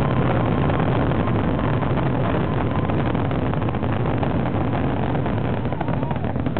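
Fireworks finale: many shells bursting in quick succession, their booms and crackle merging into one continuous heavy rumble.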